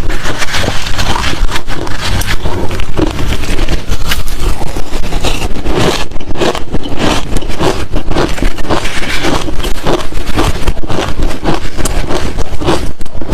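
A person chewing hard crushed ice and shaved-ice chunks close to the microphone: a continuous run of loud, crisp crunches, about two to three a second.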